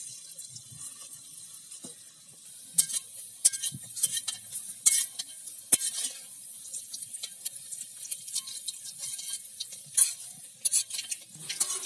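Bondas made of wheat-flour batter deep-frying in hot oil in a metal kadai, sizzling steadily. Metal utensils scrape and clink against the pan several times as the bondas are turned.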